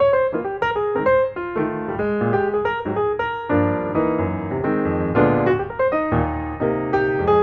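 Background piano music: a quick run of notes over changing chords.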